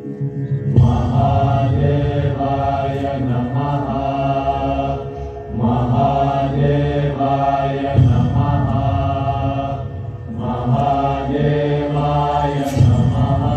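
Low voices chanting a mantra in long, drawn-out phrases, with short breaks between them.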